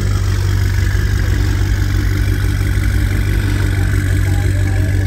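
Car engine idling steadily, a constant low hum.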